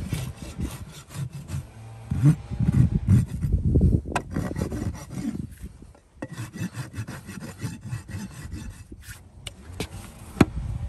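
A farrier's hoof knife, then a rasp, scraping a horse's hoof in quick repeated strokes, with a short pause about six seconds in. A single sharp click comes near the end.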